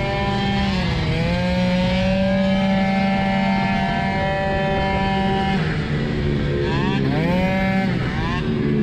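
Tuned two-stroke engine of a Piaggio Zip SP scooter at racing revs. The pitch dips about a second in, then holds high and steady. After about five and a half seconds it drops, then climbs sharply twice in quick sweeps as the throttle is shut and reopened, and it drops again near the end.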